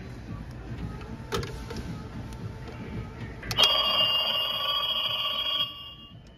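Animated spooky telephone prop's small speaker playing an electronic telephone ring. The ring starts suddenly a little past halfway, after a faint click, and lasts about two seconds.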